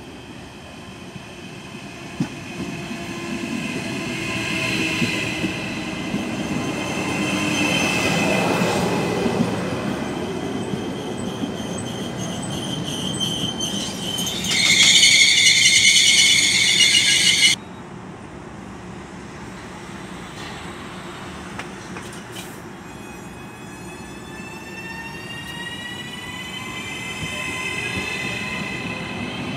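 Trenitalia ETR 521 'Rock' double-deck electric multiple unit running in along the platform: the rumble of wheels on rails grows louder, with a high steady whine over it. About halfway through, a loud high-pitched squeal lasts about three seconds and cuts off suddenly. After that, a fainter whine slowly rises in pitch as the train rolls on.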